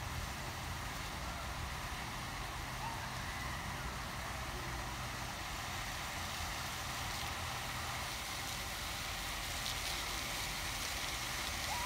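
Fountain water splashing: a steady, even hiss over a steady low rumble.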